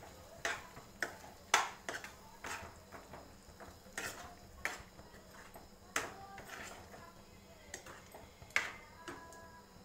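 Metal spoon stirring thick spinach-and-potato curry in a pan, clinking against the pan's sides and rim with short ringing taps about twice a second, irregular.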